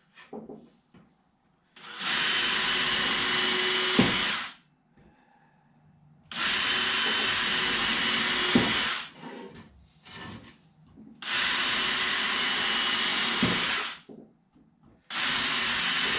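Cordless drill running in three steady runs of about two and a half seconds, with a fourth starting near the end, boring screw holes into wooden strips. Each run ends with a short knock.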